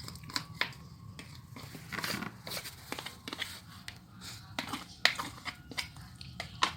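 Grated kencur (aromatic ginger) pulp being squeezed in a cloth to press out its juice: irregular rustling and handling noise with scattered sharp little clicks.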